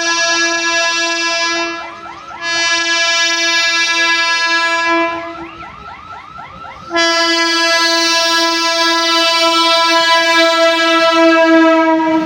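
Indian Railways locomotive horn sounding three long, loud blasts, the last the longest. A rapid wavering tone runs beside the first two blasts.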